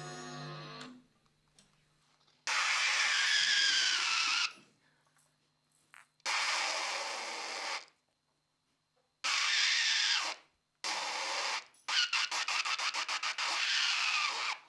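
A group of musicians playing harsh bursts of noise together on hand-sign cues: a fading chord, then four blasts of a second or two each that start and cut off abruptly together, then a run of quick choppy bursts about six a second.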